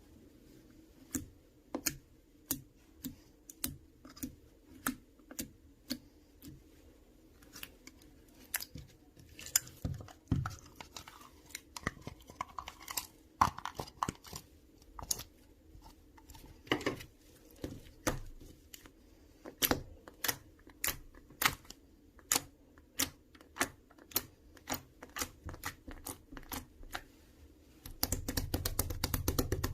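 A series of short, sharp clicks or taps at an uneven pace of about one or two a second, ending in a dense rapid flurry of clicks near the end.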